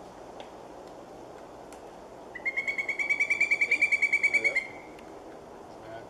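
Pileated woodpecker calling: a fast run of about two dozen loud, ringing notes, some ten a second, beginning a couple of seconds in and lasting a little over two seconds, growing louder as it goes.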